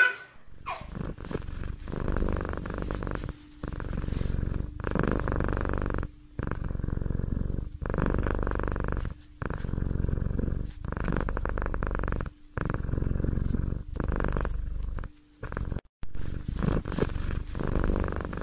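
Domestic cat purring in a steady rhythm, each pulse lasting about a second and a half, with brief breaks between them.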